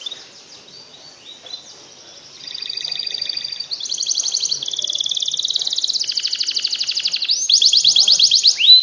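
Domestic canary singing in a rolling series of trills, each phrase a fast run of one repeated note before switching to the next. The song is faint at first and gets much louder about two and a half seconds in, ending on quick repeated downward sweeps.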